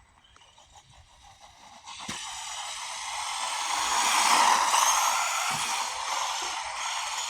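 Small brushed electric motor of a 1/18 scale RC car whining as the car drives, with tyre noise. It starts about two seconds in and swells to its loudest around the middle.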